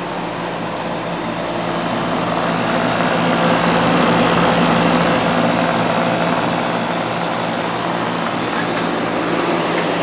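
Home-built heat pump water heater running: its air-conditioner compressor hums steadily under the broad rush of air from the radiator fan. The sound grows a little louder about three to five seconds in.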